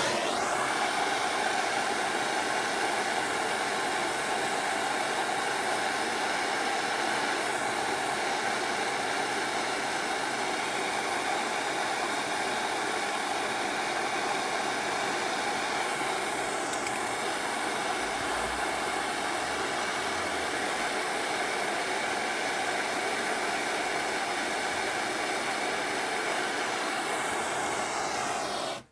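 Handheld gas blowtorch burning with a steady hiss as it heats an aluminium crankcase for a solder-type aluminium repair; the flame cuts off suddenly near the end.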